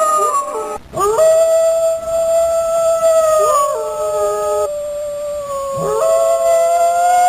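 Two or more dogs howling together in long, drawn-out notes that slide in pitch and overlap, with a brief break about a second in.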